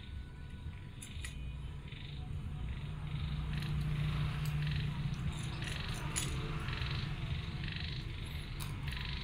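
Faint clinks and scrapes of a metal spoon against a ceramic bowl of porridge, over a low steady hum that grows a little louder around the middle.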